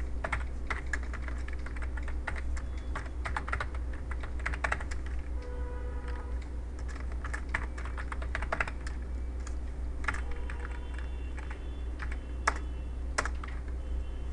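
Typing on a computer keyboard: irregular runs of keystroke clicks with short pauses, over a steady low electrical hum.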